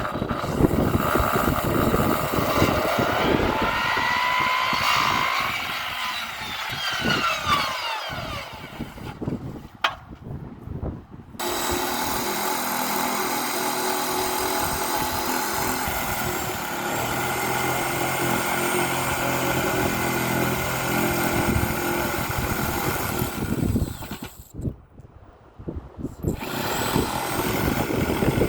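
A motor running, its pitch sweeping up and down in the first few seconds and then holding a steady drone. The sound breaks off twice for a second or two.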